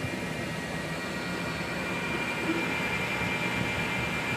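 Elegoo Neptune 4 Max 3D printer running mid-print: a steady whir of its fans and motors, with a high steady whine.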